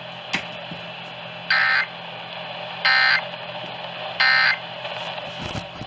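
Emergency Alert System end-of-message data tones heard over AM radio: three short, identical bursts of buzzy digital data, about a second and a half apart, which mark the end of the alert activation. A faint steady hum lies underneath.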